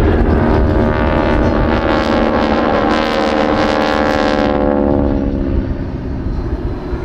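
North American SNJ trainers' radial engines and propellers droning past, the pitch falling as they go by and fading about five seconds in. Wind buffets the microphone throughout.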